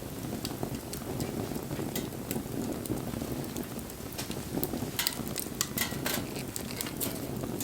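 Wood bonfire burning: a steady low rush of flame with sharp crackles and pops from the burning wood, which come thickest about five to six seconds in.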